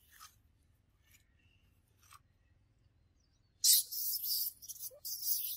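Near silence with a few faint ticks. Then, about three and a half seconds in, a person starts whispering in a run of short, loud, breathy bursts.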